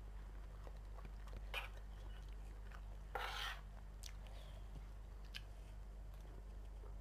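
Faint eating sounds: a person chewing, with a few light clicks of a metal spoon and fork on a china plate and a short scrape a little past three seconds in, over a steady low hum.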